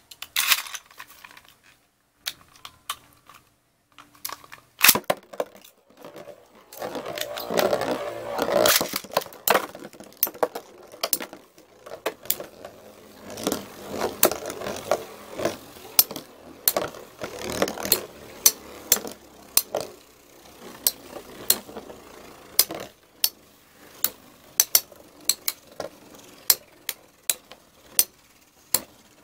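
Two Beyblade spinning tops, Storm Pegasus 105RF and Lightning L-Drago 100HF, spinning in a plastic stadium. Their metal wheels whir and scrape on the plastic and strike each other in repeated sharp clicks, which settle into a regular ticking near the end.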